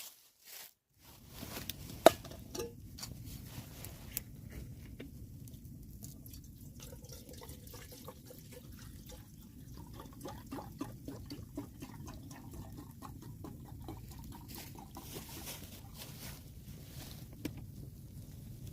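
Water sounds: a steady low wash dotted with many small drips and clicks, starting about a second in, with one sharp click about two seconds in.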